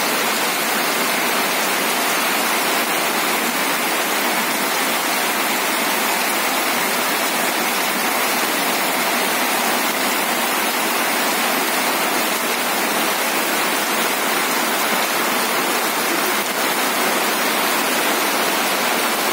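Heavy rain pouring steadily onto a waterlogged dirt yard and its puddles: a dense, even hiss.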